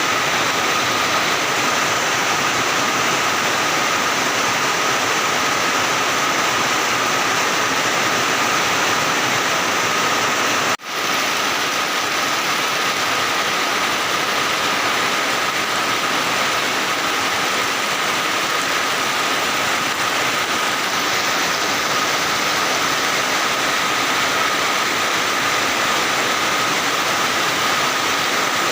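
Heavy, steady rain falling, a dense even hiss with a faint steady high tone running through it. The sound drops out for an instant about eleven seconds in.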